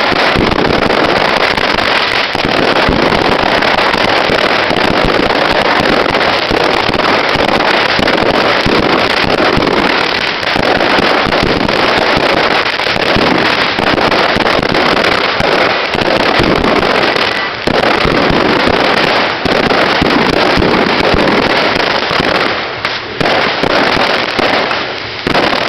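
Strings of firecrackers going off in a loud, dense, continuous crackle of rapid bangs, breaking up into shorter bursts with brief gaps near the end.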